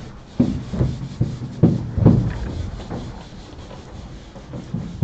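Rubbing and rustling with a string of dull knocks in the first two seconds, then quieter rubbing: a lecturer handling papers and moving about at a chalkboard.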